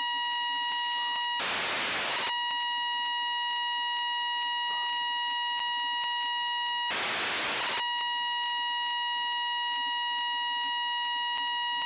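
Demodulated FM downlink from the amateur satellite AO-92 (Fox-1D), played back through a software-defined radio: a steady, buzzy 1 kHz tone with a string of overtones. Twice, about five and a half seconds apart, the tone drops out for just under a second and a burst of hiss takes its place.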